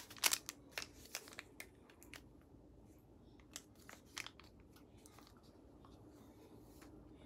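Plastic stick packet of powdered probiotic crinkling as it is shaken, a dense run of small crackles that thins out after about two seconds, then a few sharper crackles about four seconds in as it is torn open.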